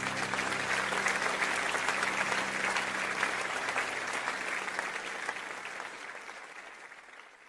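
Applause: a dense patter of many hands clapping, fading out over the last second or two.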